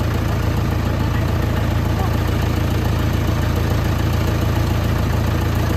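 JCB backhoe loader's diesel engine idling steadily, a constant low hum.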